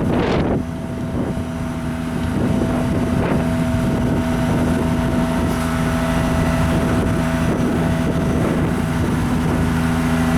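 Tree-trimming truck's engine running at a steady speed, a constant drone, with a short rush of noise at the very start and some wind on the microphone.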